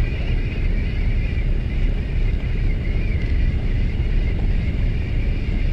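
Steady low rumble of the boat and wind buffeting the microphone, with a thin wavering whine running above it.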